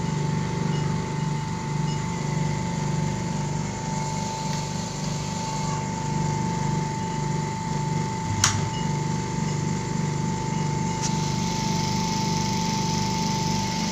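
Jewellery polishing machine running steadily: a motor hum with a pulsing low rhythm and a steady high whine. One sharp click about eight and a half seconds in.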